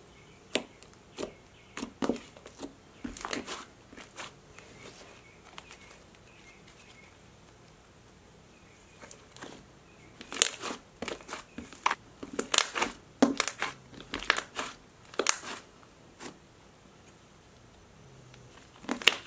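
Thick butter slime made with Model Magic and Daiso clay being squished, folded and stretched by hand, giving irregular sharp clicks and pops. The clicks thin out for a few seconds in the middle, then come thick again.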